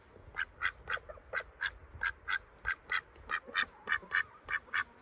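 A white domestic duck quacking in a fast, even series of short quacks, about three or four a second.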